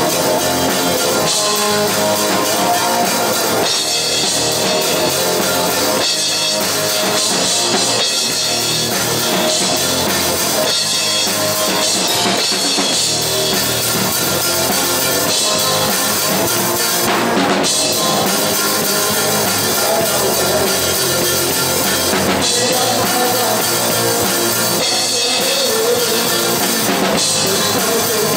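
Live rock band playing loudly and without a break: drum kit, bass guitar and electric guitar, with the drums close to the microphone.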